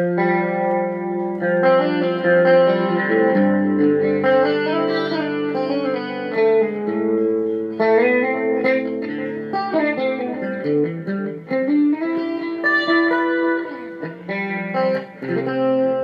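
Electric guitar played through the stereo chorus patch of a Zoom G3Xn multi-effects pedal, with sustained chords and single notes ringing over one another.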